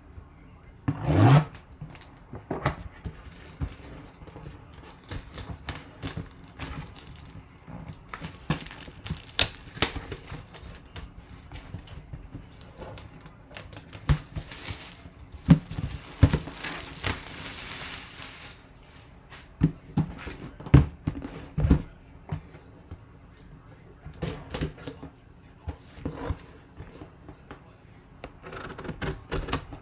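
Plastic shrink-wrap being torn and peeled off a cardboard box, with crinkling, followed by scattered knocks and thumps as the box is handled on a tabletop.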